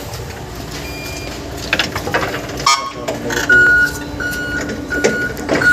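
Electric reach-truck forklift's warning beeper sounding a loud, evenly repeated high beep, four beeps starting about halfway through, over a steady electric hum.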